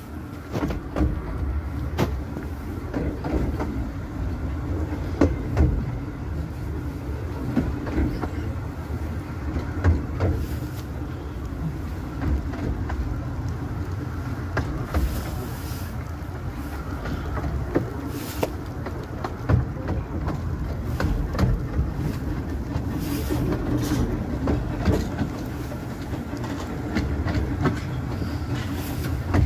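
Carriage of a 15-inch-gauge miniature railway running along the track, heard from on board: a steady low rumble with irregular clicks as the wheels pass over rail joints.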